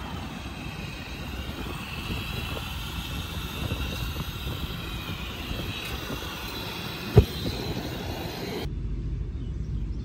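Steady road and wind noise of a car cruising at motorway speed, with a single sharp knock about seven seconds in. Near the end the sound turns suddenly duller.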